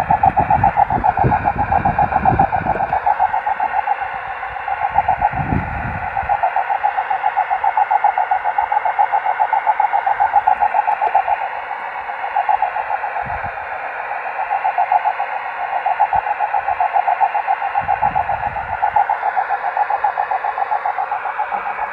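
A 10 GHz carrier received by rain scatter and heard from the receiver as a rough, fluttering tone with hiss, swelling and fading every few seconds. This raspy sound is typical of rain-scatter propagation and much like auroral propagation. Low rumbles come in the first few seconds and again near the end.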